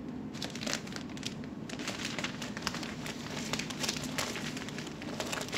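Paper wrapping of a flower bouquet crinkling and rustling as it is handled, in many small irregular crackles.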